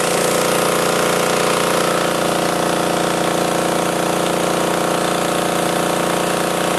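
High-pressure breathing-air compressor driven by a small petrol engine, running steadily while it pumps air into a scuba cylinder.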